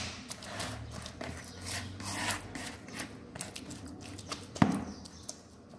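A hand squishing and kneading a wet, sticky semolina dough in a plastic bowl: irregular squelching and rubbing strokes, with one sharper knock about three-quarters of the way through.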